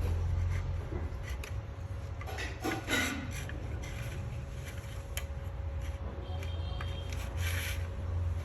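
Rubbing and scraping with scattered clicks, as from tools or parts being handled, over a steady low hum.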